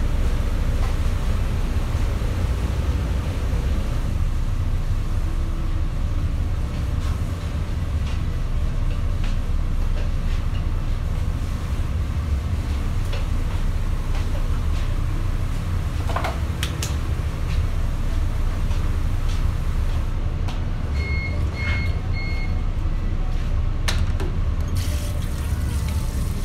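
Steady low rumble of commercial kitchen equipment running, with a few light clicks. About 21 seconds in come three short high beeps.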